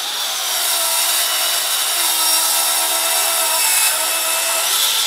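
Festool plunge-cut track saw running on its guide rail and cutting through a white oak panel: a steady motor whine mixed with the blade's cutting noise, starting to fade near the end.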